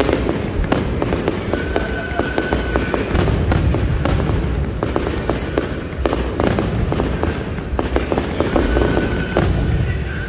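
Fireworks display: a dense run of bangs and crackling bursts, one after another, with heavier booms among them.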